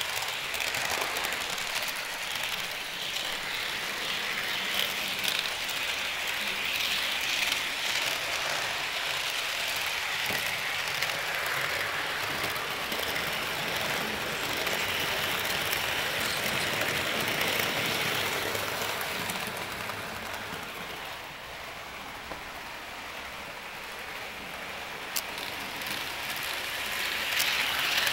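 HO scale model trains rolling on the layout's track: a steady hiss and whirr of small metal wheels on rail and the locomotive motors, easing off past the middle and building again near the end.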